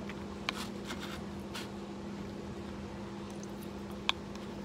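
Plastic spoon clicking against a plastic bowl twice, about half a second in and near the end, with soft eating sounds between, over a steady low hum.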